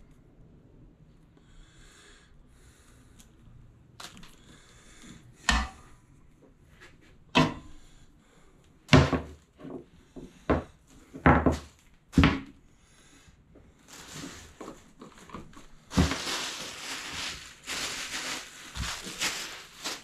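Power cord and plug being handled on a wooden workbench: a series of separate knocks and thuds, then several seconds of rustling near the end.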